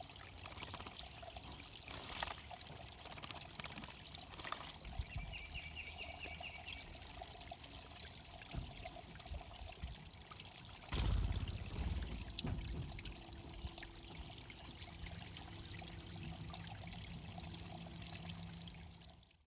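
Water trickling steadily into a bird pond, with a few bird calls over it: a short rapid trill about five seconds in and high chirps later. A low thump about eleven seconds in is the loudest sound.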